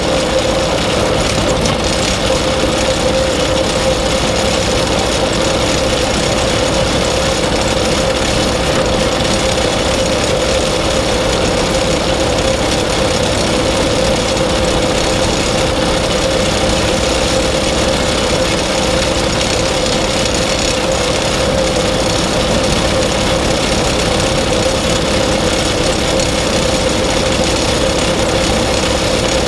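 Tractor and grass-harvesting machinery running steadily under load, with a constant machine whine over the engine.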